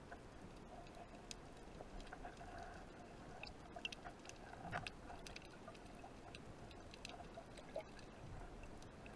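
Underwater ambience picked up through a speargun-mounted camera's housing: a faint steady hiss with scattered small clicks and crackles, a few sharper ticks near the middle.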